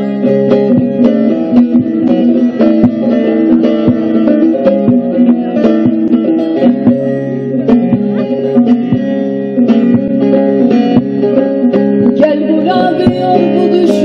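Bağlama (Turkish long-necked saz) playing an instrumental passage: quick plucked runs over a steady drone of ringing lower strings. A held, wavering note joins near the end.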